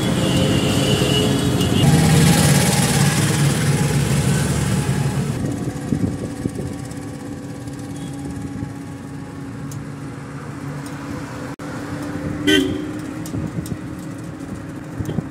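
Auto-rickshaw ride in city traffic: engine and road noise, louder for the first five seconds and then quieter. A vehicle horn gives one short toot about twelve seconds in.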